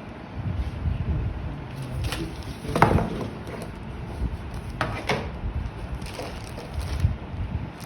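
Handling noises: a few sharp knocks and clatters, the loudest about three seconds in and a quick pair about five seconds in, over a steady low rumble of microphone noise.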